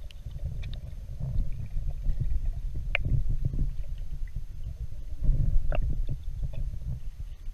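Muffled underwater rumble of water moving around a submerged camera, with a few short sharp clicks, one about three seconds in and one near six seconds.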